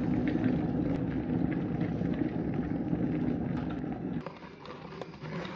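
Electric kettle heating up, a steady low rumble of water coming to the boil that dies down about four seconds in. A few light clicks follow near the end.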